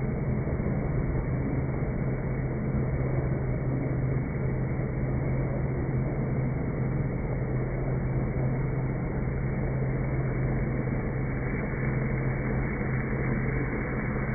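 Magnetic drill cutting a hole in steel, its sound slowed down with the slow-motion footage into a low, steady drone with a constant hum and no high end.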